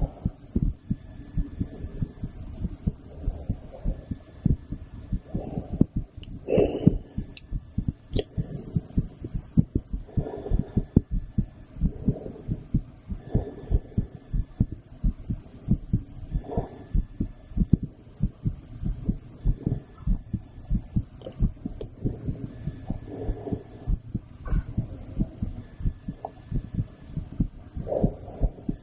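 A woman's heartbeat heard through a stethoscope: a steady, even run of low thumps. Now and then a brief, soft, higher-pitched noise sits over it.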